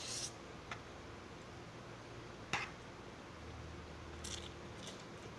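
Quiet sounds of a person eating instant noodles: noodles sucked in off a fork and chewed. There is a short hiss at the start and a few brief sharp sounds later on.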